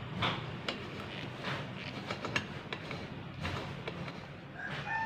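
Scattered light clicks and knocks over a steady low hum, with a rooster starting to crow near the end.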